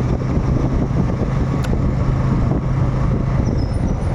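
Motorcycle engine running steadily while riding, under a haze of wind and road noise, with a brief click about one and a half seconds in.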